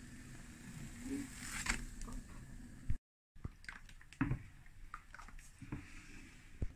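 Kitchen work sounds: wet, squishy sounds of pancake batter and scattered light clicks and knocks of utensils, with a brief cut-out in the sound about three seconds in.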